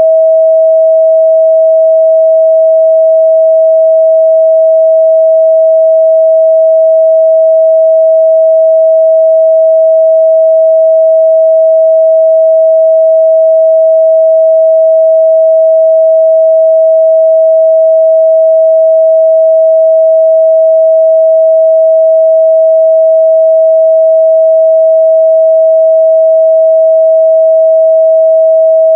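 Steady pure sine-wave test tone at 644 Hz, held at a constant loud level with no change in pitch.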